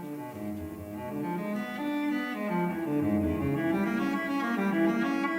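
Background music: bowed cello playing slow, sustained notes, growing louder.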